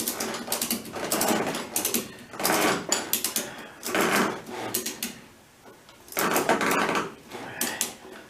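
Motorcycle lift being cranked up under a Harley Sportster: repeated strokes, each a short burst of clicking and clattering mechanism, about six of them with brief pauses in between.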